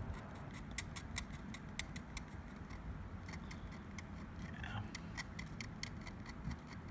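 Knife blade scraping the coating off the lettering of an Iron Grip dumbbell: a run of light, scratchy ticks, several a second.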